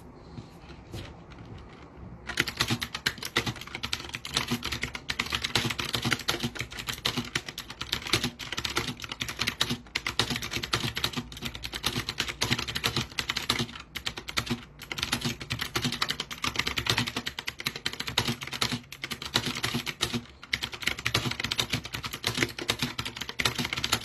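Fast touch-typing at about 84 words per minute on a STOGA mechanical keyboard with round typewriter-style keycaps. It is a dense, unbroken stream of key clicks that starts about two seconds in, with only a few short pauses.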